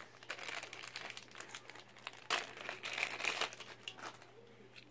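Packaging crinkling and rustling as carded diecast toy cars are lifted out of a box and handled. It comes as a run of quick crackles, loudest a little over two seconds in and again around three seconds in.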